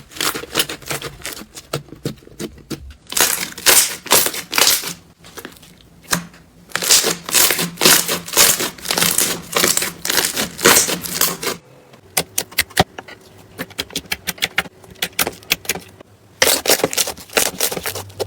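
Slime being squeezed and pressed by hand, giving dense runs of crackling and popping clicks. About two-thirds of the way through, the clicks become sharper and more evenly spaced.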